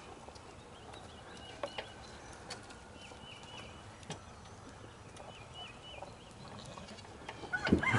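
Quiet farmyard background with short high chirps repeating and a few sharp clicks, then a rooster starts to crow near the end.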